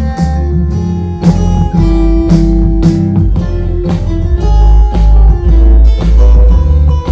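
Instrumental guitar beat: plucked and strummed guitar notes over heavy deep bass and regular drum hits, played back through Bose computer speakers as a sound test.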